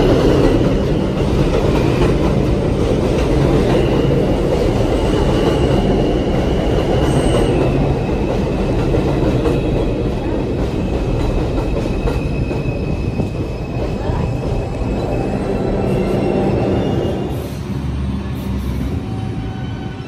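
R142 subway train running along the platform, its steel wheels rumbling on the rails with a thin high wheel squeal. The rumble eases about three-quarters of the way through as the train slows.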